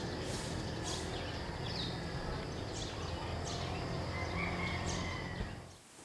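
Birds calling outdoors: short, high, falling chirps at irregular intervals over a steady low rumble. It cuts off suddenly near the end.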